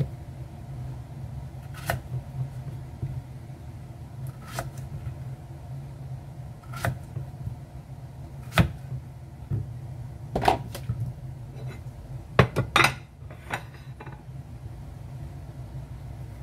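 Kitchen knife cutting through peeled gourd and striking a wooden chopping board: a short sharp knock every second or two, several in quick succession about twelve seconds in, over a steady low hum.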